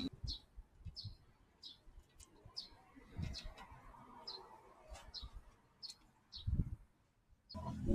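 A small bird chirping over and over, short high chirps about two a second, with a few faint knocks underneath.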